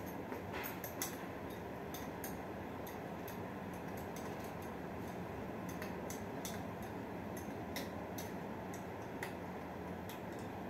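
Steady rain hiss with scattered sharp ticks of drops landing on a hard surface close by, a few a second at irregular spacing.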